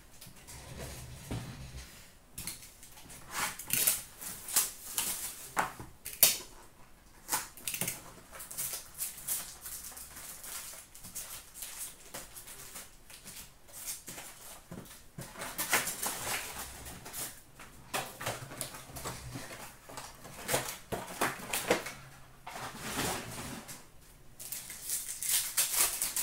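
Hands opening an Upper Deck Trilogy hockey card box and handling its packs and cards: crinkling and rustling of wrapper, cardboard and card stock, with scattered clicks and taps coming in irregular bursts.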